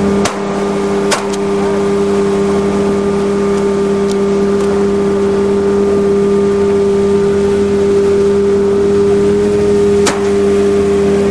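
Speedboat engine running at a steady high speed. Shotgun shots sound over it, two in quick succession about a second apart near the start and one more near the end.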